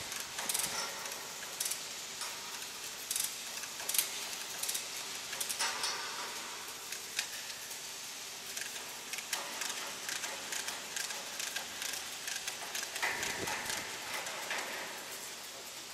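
Irregular metal clicks and knocks from cargo securing work, over a steady background noise.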